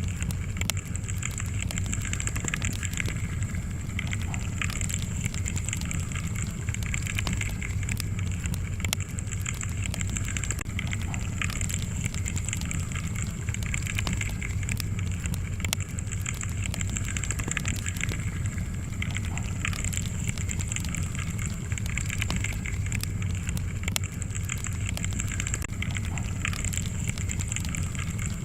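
Wood fire crackling steadily, with many small irregular pops and snaps over a low rumble of flame.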